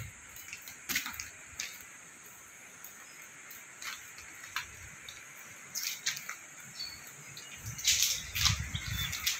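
Steady high-pitched drone of tropical insects, likely crickets, with scattered sharp clicks and a cluster of low thumps near the end.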